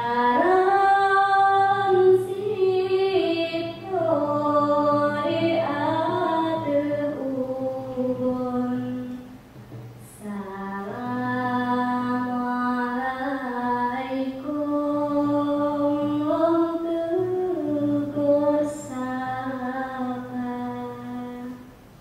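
Unaccompanied Saman chant from Aceh: a voice sings long held notes that slide and waver between pitches, pausing briefly about ten seconds in before carrying on.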